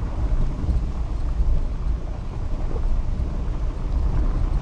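Steady, uneven low rumble of a vehicle driving through heavy rain, road and rain noise mixed together.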